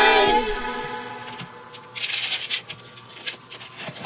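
A held sung "Surprise!" dies away in the first second. Then comes soft, irregular rustling and crinkling of packaging being handled.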